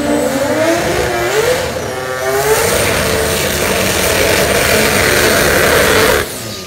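Drag car engine revving, its pitch climbing over the first two seconds, then held high and loud through a burnout with tyre smoke. The sound cuts off suddenly near the end.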